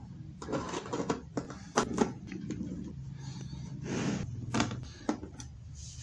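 A Phillips screwdriver backing screws out of a Bluetooth speaker's plastic control panel: irregular small clicks and knocks, with a longer scrape about four seconds in.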